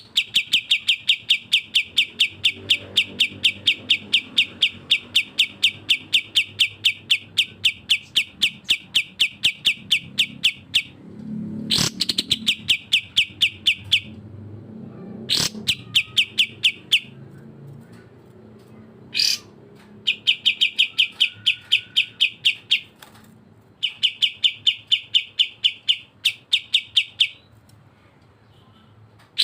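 Songbirds of the masteran pairing, cucak jenggot and kapas tembak, singing a fast train of sharp repeated notes, about five or six a second, in long bouts with short gaps. A few single rising calls fall between the bouts.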